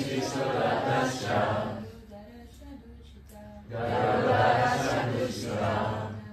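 Group of voices chanting a Sanskrit verse, in two phrases about four seconds apart, with a softer single voice between them, as in call-and-response verse recitation.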